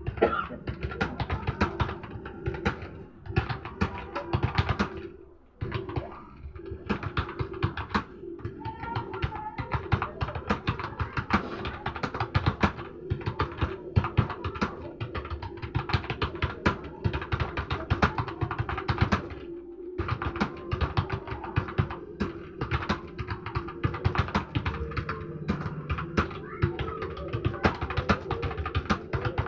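Background music with steady held tones, over a dense, irregular run of quick clicks throughout.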